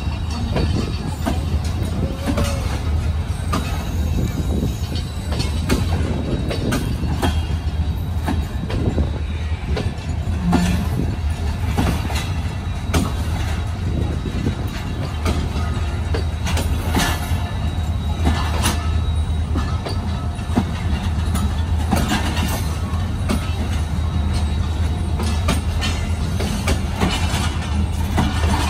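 Passenger train coaches rolling past on the rails: a steady low rumble with irregular clicks and knocks from the wheels running over the track.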